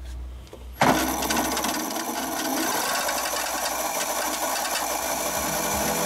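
Razor E300 scooter's electric motor and chain drive whirring, driven by the original 24-volt controller to spin the rear wheel with no load. It starts suddenly about a second in and then runs steadily.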